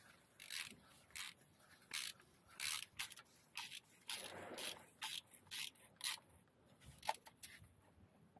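A stiff hand brush scrubbed against the grimy metal underside of a tractor in short, irregular scraping strokes, about one or two a second, growing sparse near the end.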